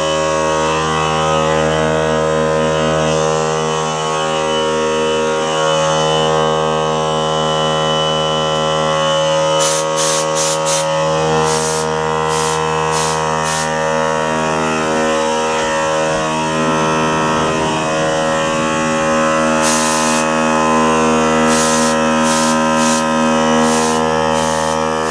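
Small electric air compressor pump, salvaged from a portable mini compressor, running steadily with a constant hum. Short bursts of hiss come in around the middle and again near the end.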